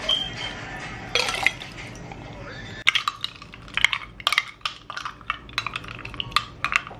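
Metal spoon clinking against a drinking glass as milky fruit ice is spooned into it: one short clear ring at the start, then a run of quick, irregular clinks from about three seconds in.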